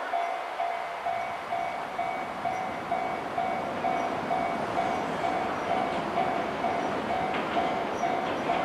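Japanese level-crossing warning bell ringing steadily, about two dings a second. Under it the running noise of an approaching JR 205 series electric train grows from about a second in.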